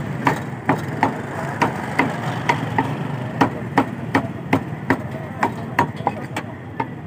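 Meat cleaver chopping raw chicken on a wooden chopping block: a steady, even run of sharp chops, about three a second.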